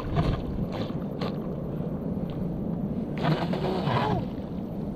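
A battery-powered RC speedboat running across shallow water, heard under a steady low rumble of wind on the microphone. It runs below its full speed because its battery and speed controller are playing up.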